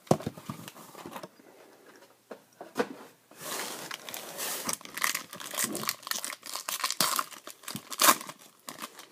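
A single knock, then foil trading-card packs crinkling as they are handled and stacked. Near the end a foil pack is torn open, the loudest sound.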